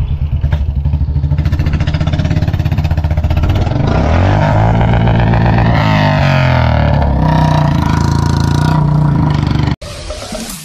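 A vehicle engine running with a steady pulsing beat, then rising and falling in pitch as it revs about four seconds in before settling again. It cuts off abruptly near the end.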